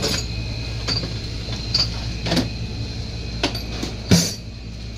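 Scattered clicks and knocks of parts and tools being handled over a steady low hum, with the loudest knock about four seconds in.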